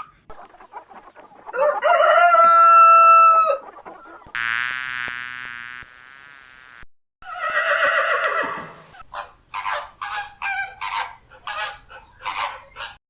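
Chickens: a rooster crows once, a long held call, followed by further calls and then a quick run of short clucks.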